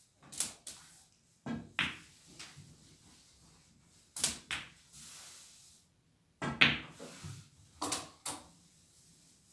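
Snooker shots played in quick succession: sharp clicks of the cue striking the cue ball and of the cue ball hitting the object ball, coming in close pairs about five times.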